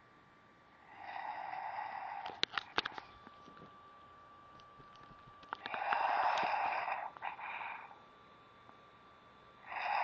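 Loud snoring: three long snores about four seconds apart, each a harsh noisy rattle on the in-breath, with a few sharp clicks just after the first.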